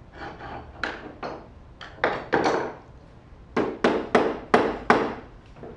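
Hand tool working wood at a workbench: about a dozen sharp strikes or strokes in uneven groups, each with a short fading rasp. The loudest come in a quick run of five near the end.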